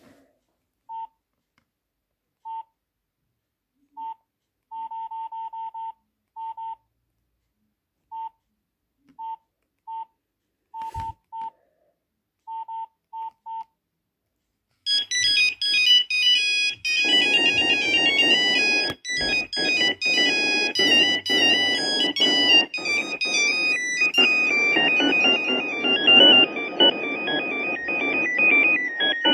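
Short, single-pitch Nokia 6233 keypad beeps as its menus are scrolled, some coming in quick runs. About halfway through, a polyphonic ringtone melody starts and plays on loudly.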